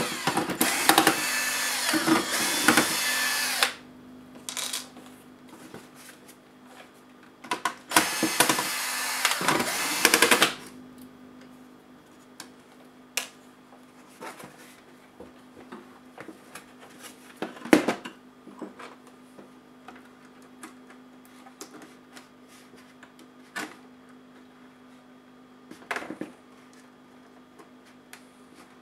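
Electric screwdriver running in two bursts, one of about four seconds at the start and one of about two and a half seconds some eight seconds in, driving screws out of a laptop's plastic base. After that come scattered small clicks and taps of plastic laptop parts being handled and pried.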